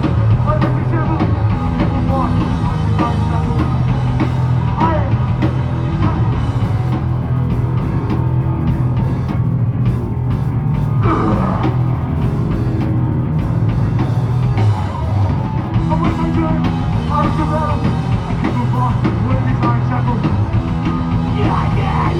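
Live loud rock band playing: distorted guitars, bass and a drum kit pounding steadily, in a heavy punk or metal style.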